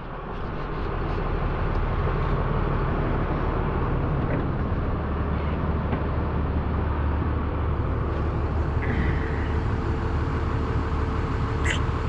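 A steady low mechanical drone with a low hum, building over the first second or two and then holding steady, with a few faint clicks.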